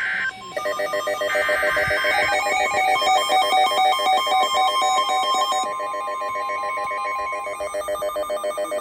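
Emergency alert signal. A buzzy SAME digital header burst cuts off a split second in, then several electronic alert tones sound together: rapid, trilling, bell-like warbles over a steady tone that holds for about four seconds and stops about seven seconds in.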